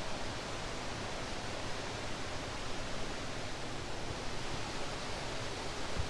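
Steady, even rushing of river water, mixed with rain falling.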